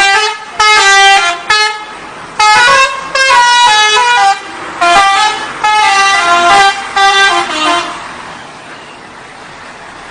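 Indonesian 'telolet' bus horn, a multi-tone musical horn, playing a loud tune of short stepped notes in quick groups for about eight seconds before dying away.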